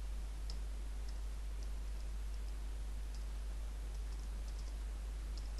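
Computer keyboard typing: scattered key clicks at an uneven pace, over a steady low hum.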